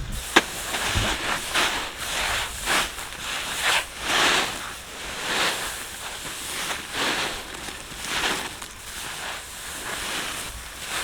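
Harvested rice paddy rustling in repeated swishes as it is scooped and pressed into a sack, with a sharp click just after the start.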